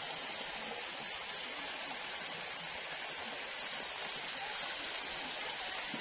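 Small rocky stream running over stones into a pool, a steady rush of water.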